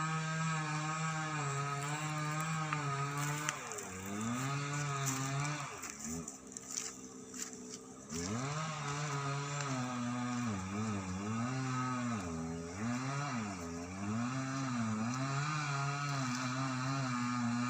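A small engine running, its speed dipping and recovering again and again, with a break of about two seconds near the middle.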